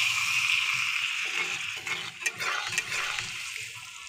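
A steel spoon stirring spinach paste into fried paneer and masala in a metal pan, the spoon scraping and knocking against the pan several times. The frying sizzle under it fades toward the end.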